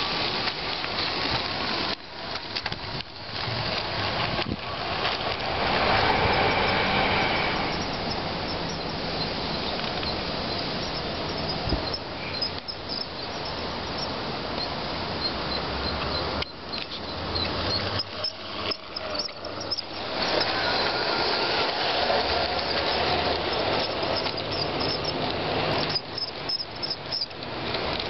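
Garden-scale LGB model train running on outdoor track: a steady rumble and rattle of wheels on the rails with a low motor hum, swelling louder twice, about six and twenty-one seconds in.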